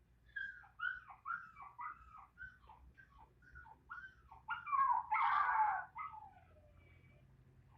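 Puppy crying: a quick run of short, high whines, each dropping in pitch, then a louder, longer, rougher cry about five seconds in.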